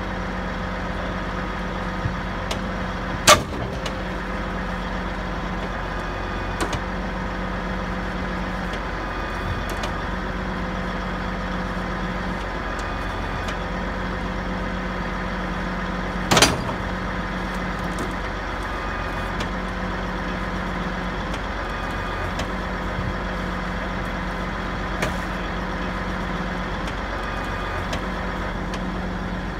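Heavy diesel truck engine running steadily, with a low hum that cuts in and out every couple of seconds. Two loud sharp clanks come through, one about three seconds in and one about sixteen seconds in, with a few lighter clicks between.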